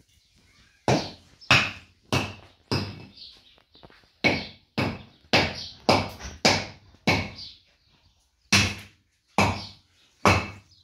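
Repeated hammer blows on the top of a concrete-block wall: about fifteen sharp knocks, roughly two a second, with a brief pause about eight seconds in.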